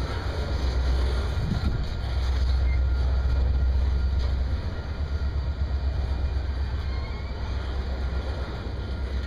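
Union Pacific double-stack container train's loaded well cars rolling past, their steel wheels on the rails making a steady low rumble.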